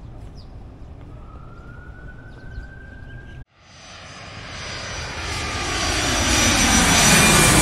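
An aircraft's engine noise, a rushing sound with a faint whine in it, starting just after an abrupt cut about halfway in and swelling steadily louder as the aircraft comes closer.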